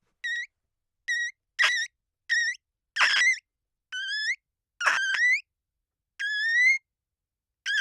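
Clean glass squeaking as it is rubbed: about eight separate high squeaks, each a fraction of a second long and mostly rising in pitch, with short silences between them.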